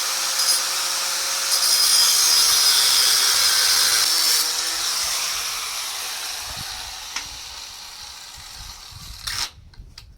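Angle grinder with a thin abrasive cut-off wheel cutting through steel angle iron, a loud steady hiss that grows louder for a few seconds mid-cut, then gradually fades and stops near the end.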